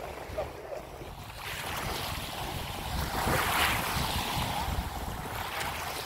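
Small waves lapping and washing at the shoreline of shallow bay water, with wind rumbling on the microphone; the wash swells a little about halfway through.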